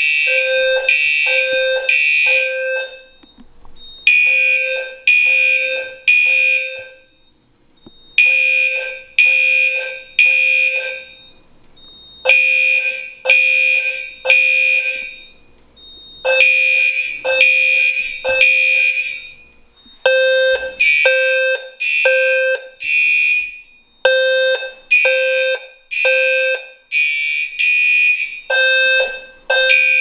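Fire alarm horns, a System Sensor low-frequency horn and a Gentex Commander 3 set to mechanical horn, sounding in the temporal-three evacuation pattern: three loud blasts, a pause, repeated about every four seconds. The alarm starts suddenly, set off by canned test smoke in the dual smoke/heat detector.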